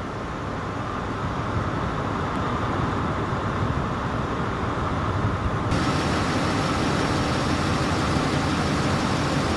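Steady rumble of idling vehicle engines. A brighter hiss joins a little over halfway through.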